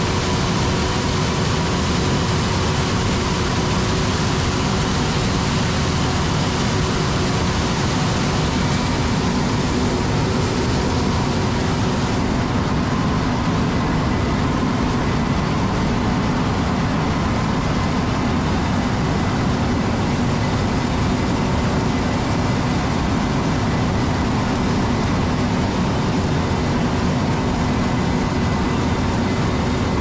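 Harvest machinery running steadily: a continuous engine and mechanical noise with a few faint held tones, from the combine harvesting corn and the tractor with grain cart beside it.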